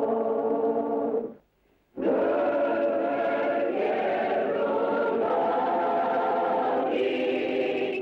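Film soundtrack music: a choir singing held chords, breaking off briefly about a second and a half in, then coming back with slowly shifting chords.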